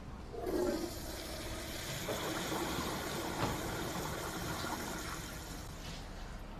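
Water rushing through bathroom plumbing. It starts abruptly about half a second in and dies away after about five and a half seconds, with a single brief knock partway through.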